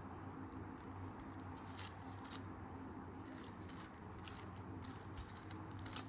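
Faint plastic clicks and clatter of a 5x5x5 Rubik's cube as its layers are turned, in irregular bursts over a steady low hum.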